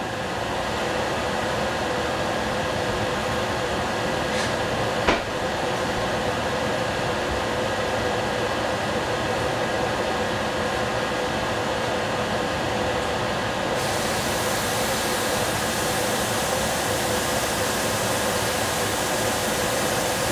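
A covered pot of broccoli and shrimp cooking on the stove, giving a steady hiss of steam and sizzling that builds up over the first second, just after the lid goes on. Two faint clicks come about four and five seconds in.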